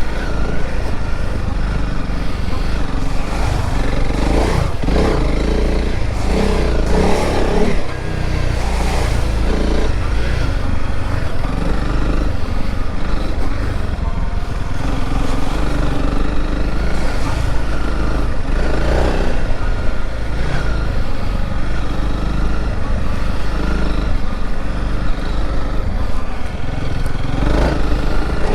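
Honda CRF300L Rally's single-cylinder four-stroke engine running under changing throttle while riding off-road, its pitch rising and falling, most noticeably in the first several seconds.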